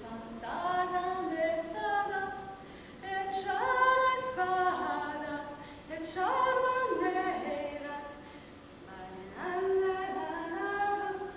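A woman singing alone, unaccompanied, in about four phrases of held and gliding notes with short breaks between them.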